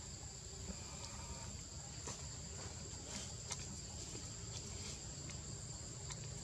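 Steady high-pitched drone of forest insects such as cicadas or crickets, with a few sharp clicks about two and three and a half seconds in and a low rumble underneath.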